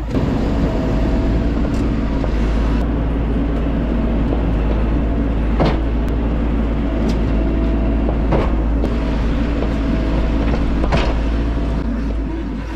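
An engine of the farm and earthmoving machinery running steadily with a low rumble. A few sharp knocks come through about six, eight and a half, and eleven seconds in.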